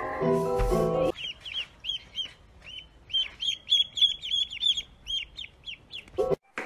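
Ducklings peeping: a fast run of short, high peeps, each rising and falling in pitch, starting about a second in and going on for about five seconds.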